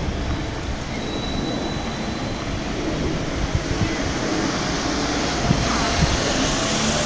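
Wind rumbling on the microphone over steady outdoor city noise. A hiss builds toward the end.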